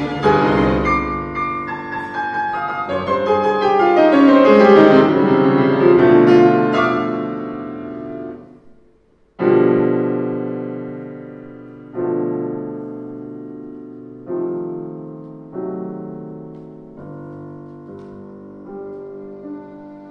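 Grand piano playing: a loud, dense run of fast notes that swells and then fades away. After a short gap come single struck chords about every one and a half to two seconds, each left to ring and die away.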